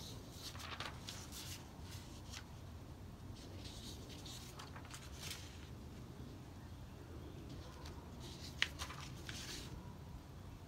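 Sheets of paper rustling as hand-held cue cards are handled and swapped, in several short bursts, with one sharp tick about eight and a half seconds in.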